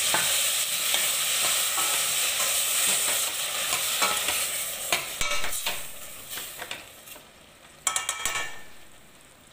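Water hitting hot sautéed vegetables in a stainless-steel pot sizzles and hisses loudly, the sizzle dying away over about six seconds. A metal ladle stirring clinks against the pot throughout, with a short metallic rattle about eight seconds in.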